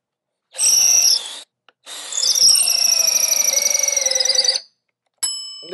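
Cordless drill boring pin holes through pecan tenons: a short run of about a second, a brief pause, then a steady run of about three seconds whose motor whine sags slightly under load as the bit cuts. Near the end there is a click and a short bright ringing chime.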